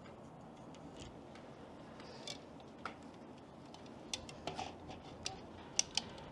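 Faint, scattered clicks and light handling noises as a solar filter is worked onto the front of a telephoto lens, a few sharp ticks standing out among soft rubbing.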